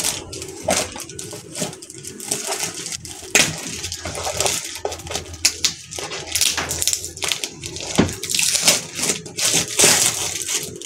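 Plastic parcel packaging being handled and torn open, with irregular crinkling, rustling and tearing.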